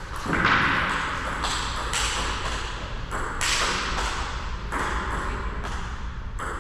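A table tennis ball clicks sharply off the paddles and table near the start as a rally ends, then taps lightly a few times while play pauses.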